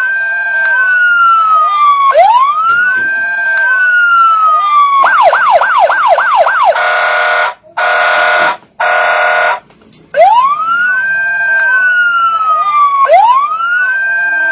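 Toy fire truck's electronic siren: a wail that rises quickly and falls slowly about every three seconds, switching about five seconds in to a fast yelp, then three short steady tones, a brief pause, and back to the wail.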